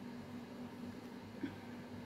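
Quiet room tone: a faint steady hum, with one brief soft tick about a second and a half in.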